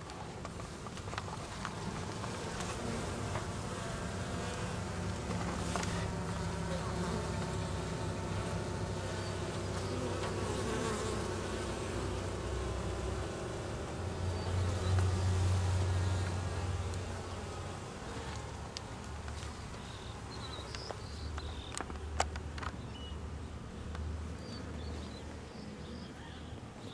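Italian honeybees buzzing at the hive entrance, a steady low hum that swells louder for a few seconds about halfway through, with a couple of sharp clicks near the end.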